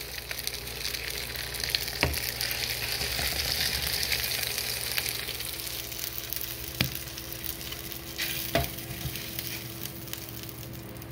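Sliced pork neck steak sizzling in a frying pan, a steady hiss that eases off somewhat after the middle, with three sharp clicks along the way.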